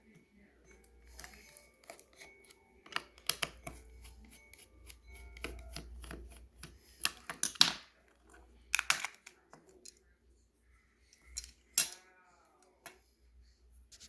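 Scattered clicks, taps and scrapes of small plastic parts being handled while a mini fan is taken apart, with a brief squeak about twelve seconds in.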